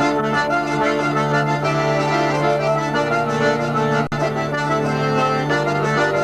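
Hurdy-gurdy, button accordion and bagpipes playing a folk dance tune together over a steady drone. The sound cuts out for a split second about four seconds in.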